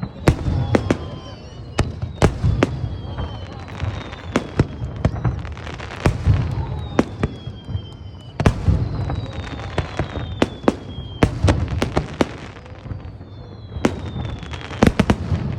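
Aerial fireworks going off: a rapid, uneven series of sharp bangs and booms over a continuous rumble, with several whistles that glide downward in pitch.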